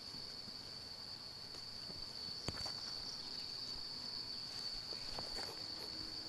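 Steady high-pitched insect drone, with a few faint clicks and rustles of a cord being knotted around a tree trunk.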